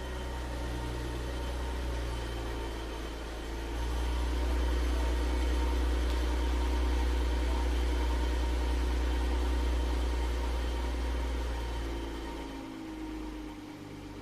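BMW Z4 M40i's turbocharged straight-six idling just after a start, getting louder about four seconds in and settling lower near the end. It carries a metallic noise that the owner finds abnormal at start-up.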